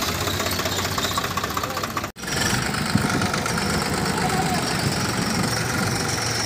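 Swaraj 744 FE tractor's three-cylinder diesel engine running at low speed as the tractor drives slowly, with a steady, rapid diesel beat. The sound cuts out for an instant about two seconds in.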